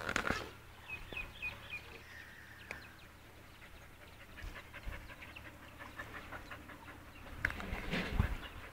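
Brown shepherd-type dog panting, mouth open and tongue out, in quick short breaths. A bird chirps a quick run of about six high notes about a second in, and the phone knocks and thuds near the end.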